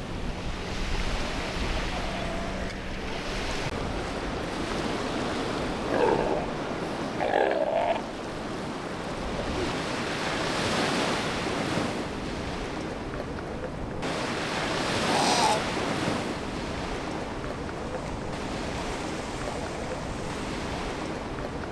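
Steady surf washing ashore with some wind, broken by three short animal calls: two close together about six and seven seconds in, and one more about fifteen seconds in.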